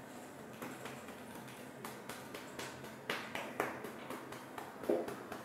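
A hand patting a cat's rump: a run of soft, irregular taps, about two a second, with a few louder ones past the middle.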